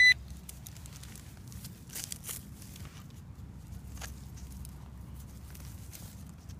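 A Garrett Pro-Pointer pinpointer gives one short, high beep right at the start. Then come faint rustles and scrapes as it is worked through loose soil and dead leaves, with a few small clicks about two and four seconds in.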